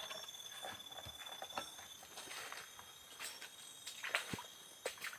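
Footsteps and scattered crackles of twigs and leaf litter on a forest floor, under a steady high-pitched insect trill that stops about two seconds in.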